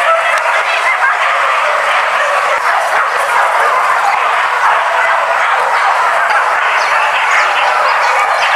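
Pack of hunting dogs barking and yelping continuously, many voices overlapping into one steady din.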